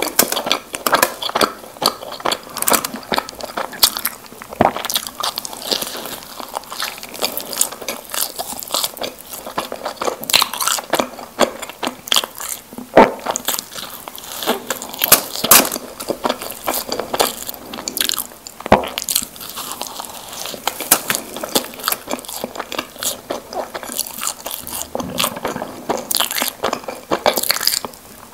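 Close-miked biting and chewing of Krispy Kreme doughnuts: a dense, irregular run of small crunches, crackles and mouth clicks as the glazed dough is bitten and chewed.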